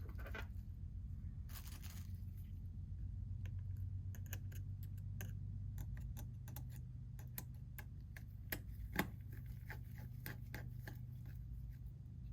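Small metal hand tools, such as a precision screwdriver and tweezers, clicking and tapping on the internal parts of an opened iPhone XR: scattered sharp ticks, two louder taps about nine seconds in, over a steady low hum.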